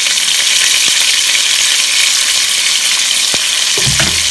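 Ground pork frying in hot oil in a cooking pot, a steady sizzle, with a couple of faint clicks and a short low knock near the end.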